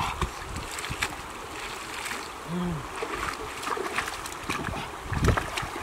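Shallow river water splashing and running over stones as a person wades and rummages with her hands among the rocks, with scattered small knocks and splashes. A brief low tone sounds about halfway through.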